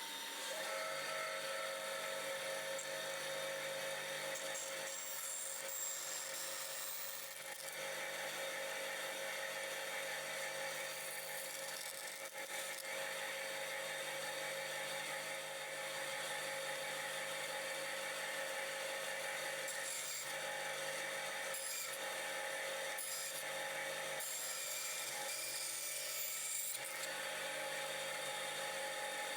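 Bandsaw running steadily, its motor and blade giving a constant hum and whine, with the blade cutting wood in stretches as the overhanging tops of a small wooden box are trimmed back to the edges.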